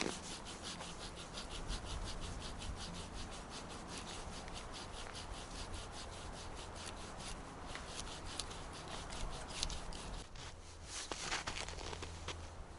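Opinel No.12 folding saw cutting a pine branch overhead in fast, even rasping strokes, about five a second. The strokes stop about eight seconds in, followed by a few scattered scrapes and cracks.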